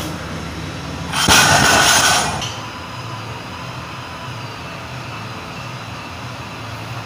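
Loaded barbell with bumper plates set down on the gym floor about a second in: a thump and then about a second of clatter. A steady low hum follows.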